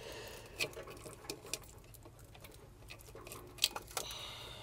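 Electrical wires being pulled out through a plastic conduit adapter on a pool booster pump motor: faint scraping and rustling with a few small sharp clicks, two of them close together near the end.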